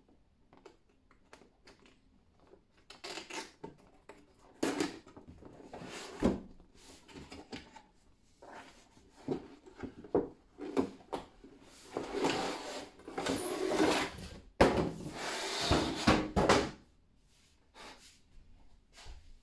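Cardboard packaging being handled: an outer cardboard sleeve scraped and slid off a model-car display box, with rustling and scattered taps and knocks. The longest, loudest scraping comes about two-thirds of the way through.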